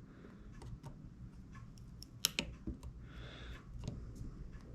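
Scattered light clicks and taps of small repair tools and tiny parts on an opened iPhone 6s, the sharpest click about two seconds in, with a brief soft rustle just after.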